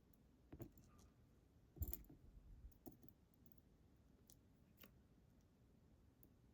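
Faint, scattered clicks of small metal lock parts and tools being handled as a pin lock is taken apart, a few separate ticks with the loudest about two seconds in.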